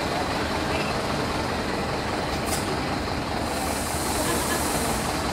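Alstom X'Trapolis Modular electric multiple unit at a station platform, with a steady running hum. There is a short sharp sound about two and a half seconds in, then a high hiss of air for nearly two seconds, like a pneumatic brake release.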